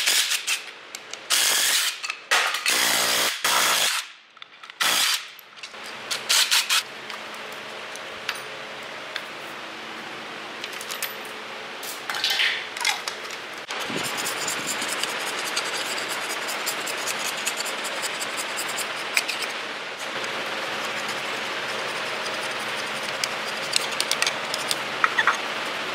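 Steel hand scraper scratching old sealant off the timing-chain end mating face of a BMW N47 diesel engine block: a steady rasping scrape with fine ticks. Several loud short bursts of a tool come first, in the opening six seconds.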